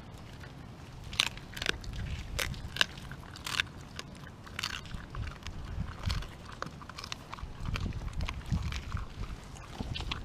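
Pitsky (pit bull–husky mix) dog chewing raw chicken on the bone, with sharp crunches several times in the first five seconds, then lighter, quicker chewing.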